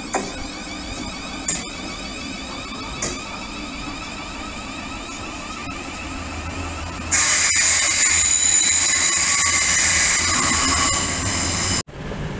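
Southeastern Networker electric train pulling into the curved platform: a faint electric whine and three short knocks, then about seven seconds in a loud, high-pitched metallic squeal that lasts about five seconds and cuts off suddenly.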